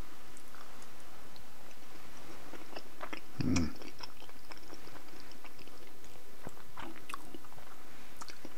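A person chewing soft macaroni and cheese, with a few light clicks of a metal fork on the bowl and one stronger short sound about three and a half seconds in.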